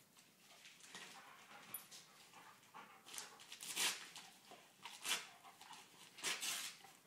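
A Rottweiler tearing Christmas wrapping paper off a present with its mouth: a few sharp ripping, rustling bursts, the loudest about four seconds in and the last near the end.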